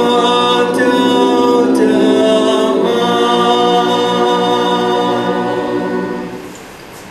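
Mixed choir of men and women singing slow, held chords; the singing dies away about six seconds in.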